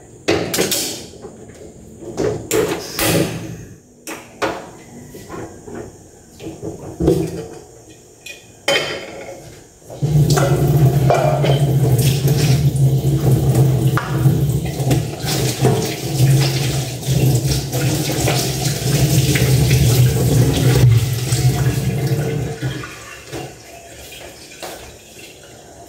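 Pots and utensils clattering, with scattered knocks, then a kitchen tap running steadily into a sink for about thirteen seconds before it is shut off.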